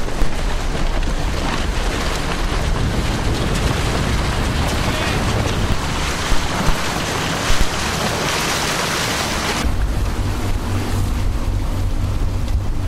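Wind buffeting the microphone over rushing water and spray from a yacht sailing at speed through a chop. About ten seconds in the high hiss eases and a steadier low rumble is left.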